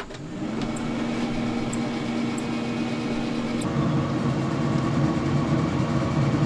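Pit Boss pellet grill starting up: a click as it is switched on, then its fan and auger motor spin up to a steady mechanical hum. The tone shifts about three and a half seconds in, and a few faint ticks sound over it.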